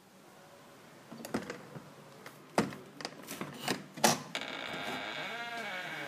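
Door lock and handle being worked: a string of sharp metallic clicks and clacks, then from about four seconds in a steady creaking scrape as the door is pulled.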